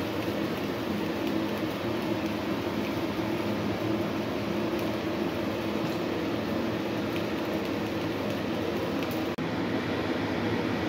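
A steady, even rushing noise with no clear rhythm or pitch, the low, machine-like hum of something running continuously. It cuts out for an instant about nine seconds in.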